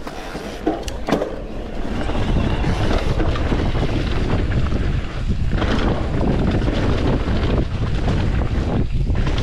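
Wind buffeting the rider's camera microphone over the rumble of mountain bike tyres rolling on a dirt downhill trail. There are a couple of sharp knocks about a second in, and the noise grows louder about two seconds in.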